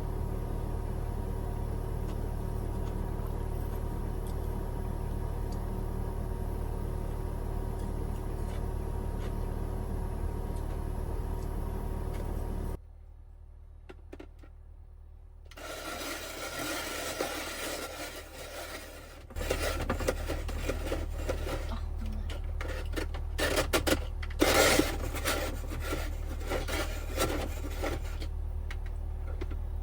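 Steady low hum of a 12V air conditioner running inside a van cabin. Partway through, the sound cuts abruptly to a quieter stretch. Then there are rubbing and scraping noises with light clicks and knocks over the returning hum.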